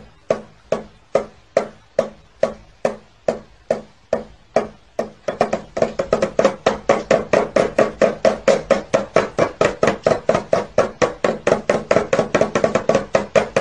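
A stick tapping the lid of a metal tin in a steady beat, about two strikes a second, quickening to about four a second and getting louder some five seconds in.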